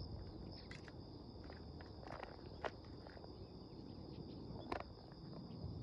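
Insects calling with a steady high-pitched tone in the background, with a few footsteps on the trail, two sharp clicks standing out.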